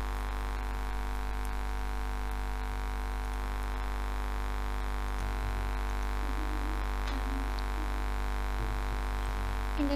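Steady electrical mains hum with a buzz of overtones, unchanging throughout.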